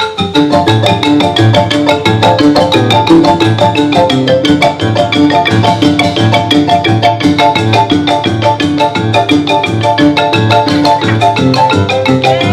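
Music with a fast melody of quick notes on a xylophone-like mallet instrument over a steady, pulsing bass.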